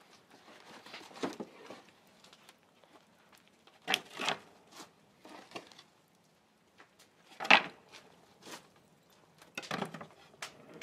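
Firewood being thrown into the firebox of a wood-fired train kiln, pieces landing with sharp wooden clatters against the brick and the burning wood. There are about five knocks, the loudest about halfway through, with soft rustling and shuffling between them.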